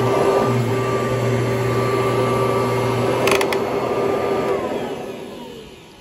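Kirby Heritage upright vacuum running steadily, then switched off about four and a half seconds in, its motor winding down with a falling whine as the sound fades. A couple of sharp clicks just past the middle.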